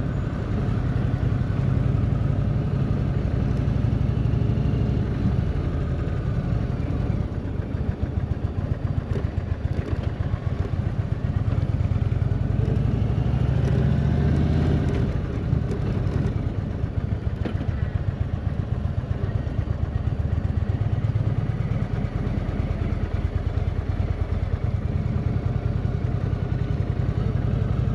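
Indian touring motorcycle's V-twin engine running at low speed, a steady rumble that rises briefly in revs about halfway through and then settles again.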